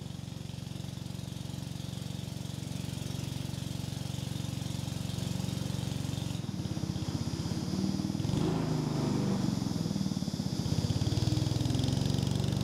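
A small boat's motor running steadily as the boat travels, a constant pitched drone with an even pulse; the sound shifts a little about six seconds in.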